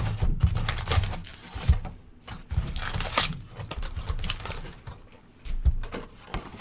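Trading card packs and boxes being handled: irregular rustling, scraping and small knocks, with a sharp knock at the start.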